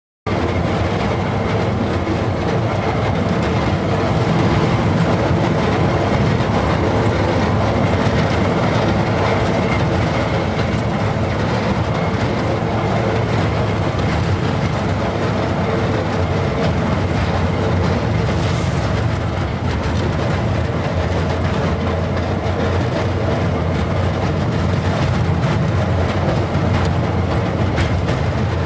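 A train running steadily along the rails, a continuous running noise with a steady hum beneath it.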